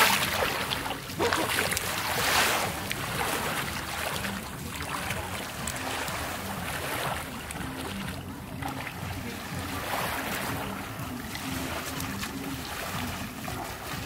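Small Black Sea waves lapping and washing onto a sandy shore, with louder splashing from feet wading in the shallows during the first couple of seconds.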